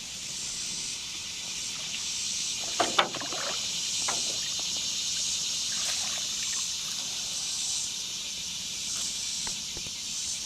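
Steady hiss of fast-flowing high river water, with a couple of short sharp sounds about three and four seconds in.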